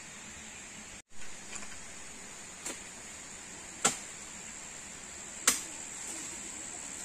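A steady high-pitched insect drone, broken by sharp woody cracks as a person up a tree cuts or snaps its branches: a faint one, then two loud ones about a second and a half apart.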